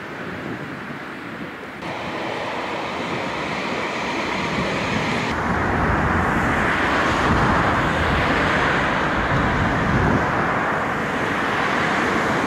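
Steady rushing outdoor noise with no distinct events, changing abruptly in character about two seconds in and again about five seconds in.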